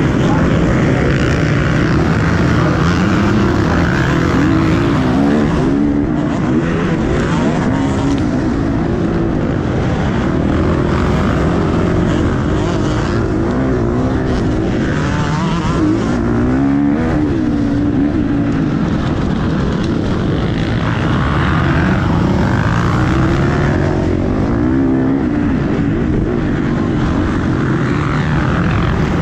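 Motocross bike engine revving up and down as it is ridden hard over a dirt track, heard from the rider's helmet, with a heavy rumble of wind and ground noise on the microphone.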